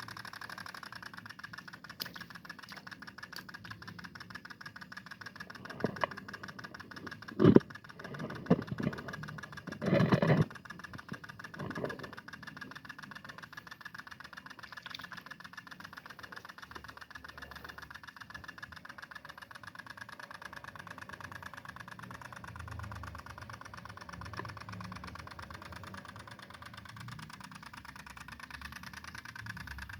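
Two-stroke engine of a G1000 mini tiller running steadily, tilling ground, with a cluster of loud knocks and thumps about six to twelve seconds in.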